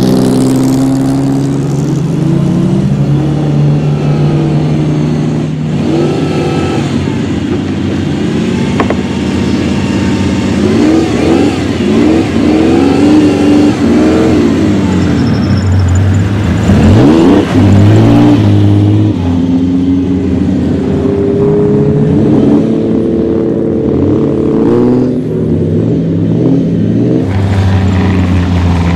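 The V12 of a 1975 Ferrari 365 GTB/4 Daytona in Group 4 competition trim, running at low speed with repeated throttle blips, its pitch rising and falling. The loudest revs come a little past the middle.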